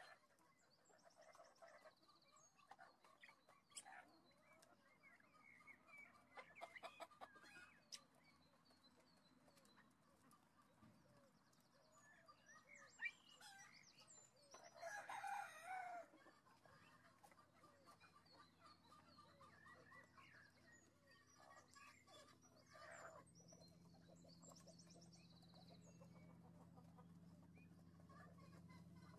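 Faint Ancona chickens calling: short runs of clucks, and one louder drawn-out call lasting about a second and a half, about halfway through.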